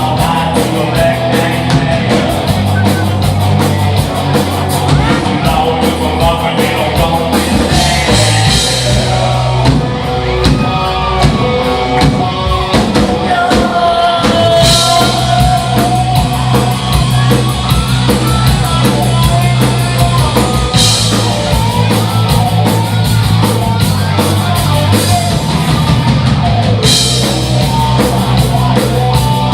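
Rock band playing live: drum kit, guitar and bass, with singing at times. Cymbal crashes come every several seconds.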